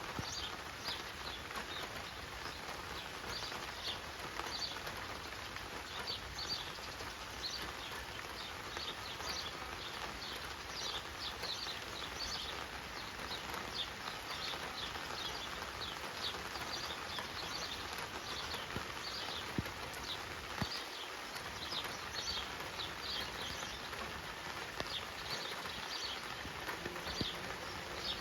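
Small birds chirping, many short high chirps coming irregularly, over a steady outdoor hiss.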